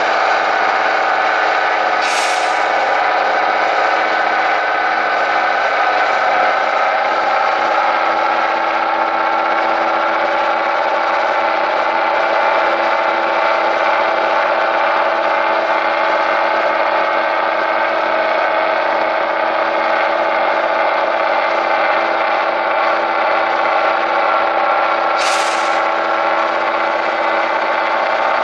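Eight-wheeled trial truck's diesel engine running steadily under heavy load as it crawls up a steep rocky slope. Two short bursts of hiss, about two seconds in and again near the end.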